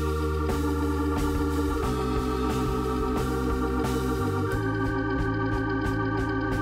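Background music: sustained organ-like keyboard chords over a steady drum beat, the chords changing about two seconds in and again past four seconds.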